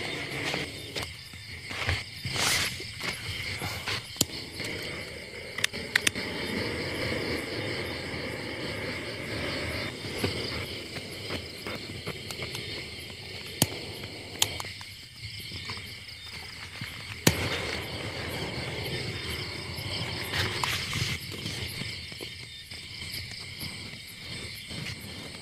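Crickets and other insects chirring steadily in a night chorus, with a few sharp clicks and some faint low noises mixed in.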